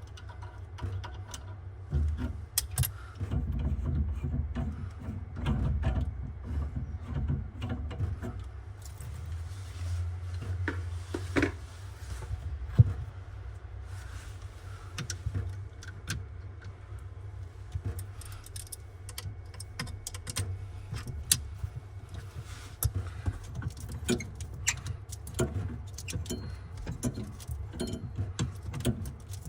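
Scattered metallic clinks and knocks of tools and metal parts being handled, over a steady low rumble.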